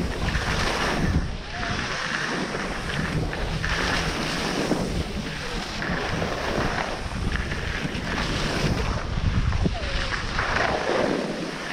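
Wind buffeting the microphone over the hiss and scrape of edges sliding on packed snow during a downhill run, swelling and easing every second or two.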